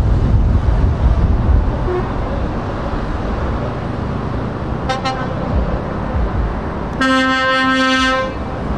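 Diesel lorry engines rumbling steadily as a convoy of trucks crawls past. A brief double toot of a horn comes about five seconds in, then a louder single truck horn blast of just over a second about seven seconds in.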